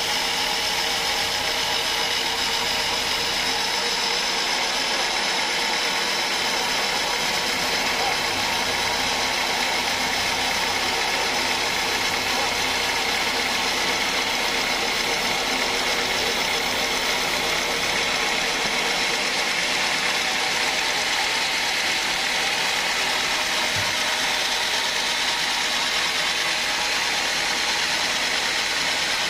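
Large band sawmill running steadily: a constant mechanical drone with a steady whine over it.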